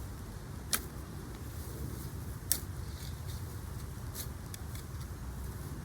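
Hands sifting through loose garden soil for potatoes: light scraping and rustling with a few sharp clicks, over a steady low rumble.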